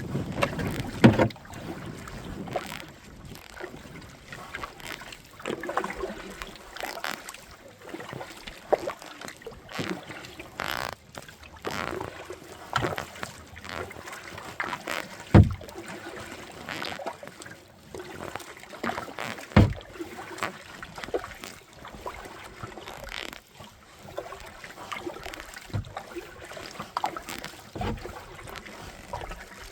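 Kayak paddling: irregular paddle splashes and dripping water, with a few sharp knocks of the paddle against the kayak.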